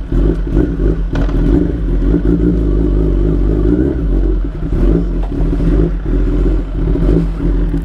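Inline-four superbike engine running at low revs as the motorcycle rolls off at walking pace, the throttle opening and closing slightly, with another superbike's engine running just ahead.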